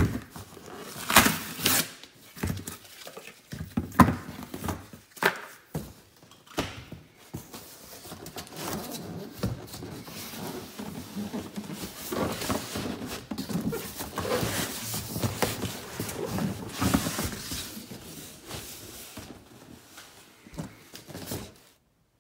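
Cardboard packing being handled and pulled out of a large shipping box: sharp knocks and thuds from cardboard corner protectors and flaps in the first few seconds, then a long stretch of rustling and scraping cardboard that cuts off suddenly near the end.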